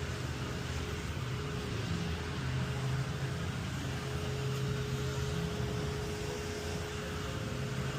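A steady low mechanical hum with a faint constant whine over a background hiss.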